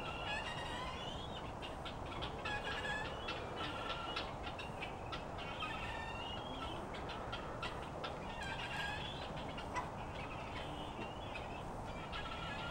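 Guinea fowl calling, short harsh calls repeated in rapid chattering runs over steady outdoor hiss. A single sharp knock comes about ten seconds in.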